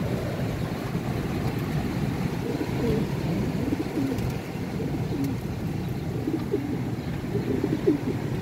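Homing pigeons cooing, a series of short rising-and-falling coos over a steady low rumble of strong wind on the microphone.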